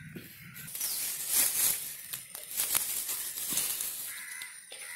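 Leaves and stems of small herbs (keezharnelli) rustling and crackling as they are grabbed and pulled up by hand, in irregular bursts.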